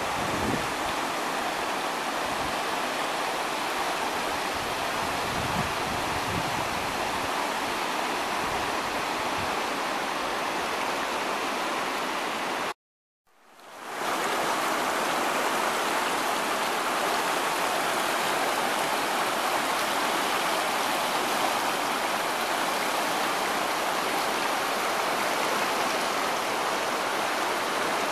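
Steady rush of the Penobscot River's fast current running over rocks along the shore. The sound drops out for a moment about halfway through, then fades back in.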